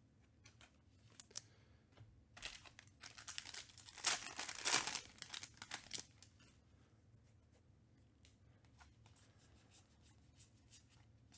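Trading card pack wrapper being torn open and crinkled, loudest about four to five seconds in, then a few faint ticks.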